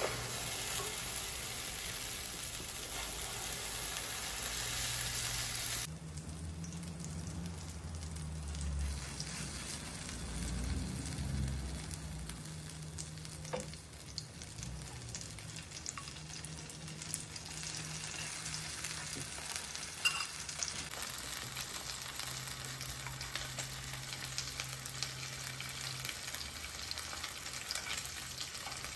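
Egg-coated eggplant frying in hot oil in a nonstick pan, a steady sizzle. A couple of sharp clicks come from a metal spoon against the pan.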